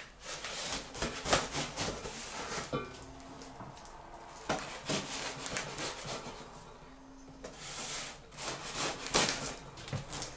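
Knife slitting the packing tape along the top of a cardboard box, with scraping and crackling of tape and cardboard in uneven strokes and a short pause about two thirds of the way through.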